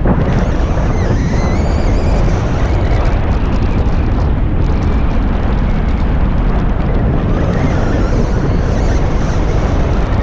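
Loud, steady wind buffeting the microphone, a rumbling rush heaviest in the low end, as of air streaming past a camera in paraglider flight.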